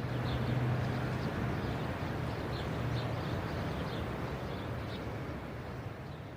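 Outdoor ambience: steady rushing noise with a low hum and a few faint high chirps, fading out near the end.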